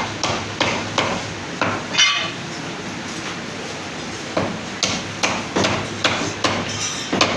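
Heavy butcher's cleaver chopping bone-in mutton on a round wooden log block: sharp chops about two to three a second, then a pause of about two seconds, then a longer run of chops. One chop about two seconds in rings with a metallic clang.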